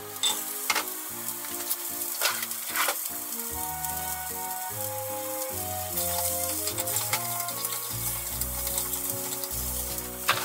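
Cut broccoli stems sizzling in hot oil in a small rectangular egg pan, stirred with chopsticks that click against the pan a few times.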